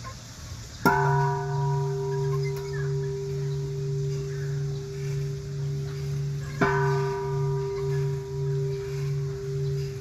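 A large hanging temple bell struck twice with a swung wooden log striker, the strikes about six seconds apart. Each strike rings on at length, with a low hum that wavers in steady pulses under a clear middle tone and brighter overtones that fade within a few seconds.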